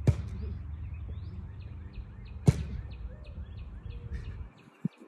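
Outdoor yard ambience: small birds chirping over a steady low rumble, broken by two sharp thuds about two and a half seconds apart, the first right at the start. The rumble drops away near the end.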